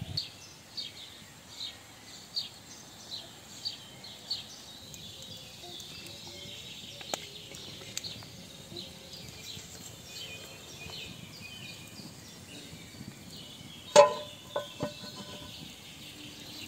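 Birds chirping in short repeated calls. About fourteen seconds in, a metal pan clanks down with a short ring, followed by two lighter clanks, as an upturned pan is set as a cover over the griddle.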